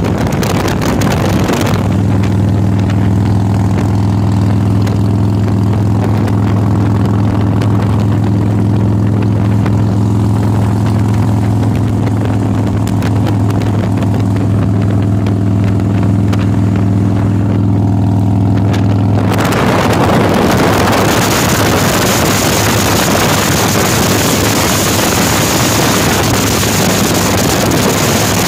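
Motorcycle engine running at a steady cruising speed, a low even hum. Wind noise on the microphone drowns it for the first couple of seconds and again from about two-thirds of the way through.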